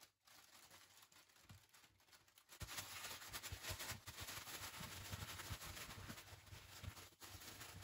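Near silence, then from about two and a half seconds in, faint soft pats and paper rustling as gloved hands press a ground-peanut filling flat in a parchment-lined baking tin.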